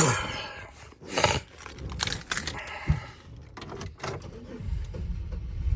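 Keys jangling and sharp knocks of handling inside a car, then a low rumble near the end as the 2004 Impala's engine catches on a rough start.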